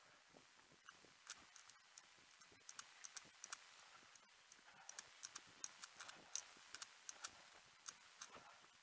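Faint, sharp clicks and taps, about two to three a second and somewhat uneven: a runner's footsteps picked up by a head-mounted action camera.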